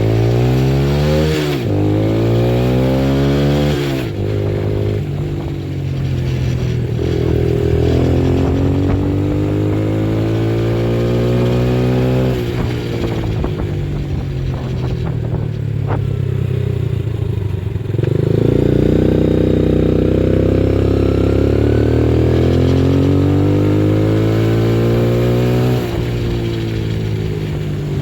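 A Yamaha Raptor 80 quad's small 80cc four-stroke single-cylinder engine being ridden hard. The engine climbs in pitch under throttle three times, and each time drops off sharply, about four, twelve and twenty-six seconds in. It runs strongly under a full-grown rider.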